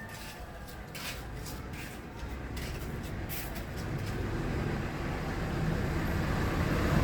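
Low vehicle engine rumble growing steadily louder, with a few sharp clicks in the first few seconds.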